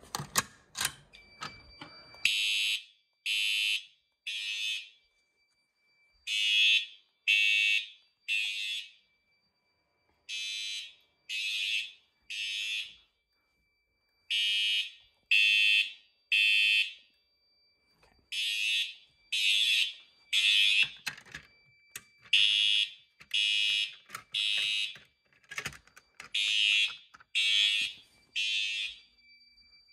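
Fire alarm system in alarm: its horns sound in the temporal-three evacuation pattern, three short blasts and a pause, repeating about every four seconds. A thin steady high tone runs beneath, and a few clicks come just before the horns start about two seconds in.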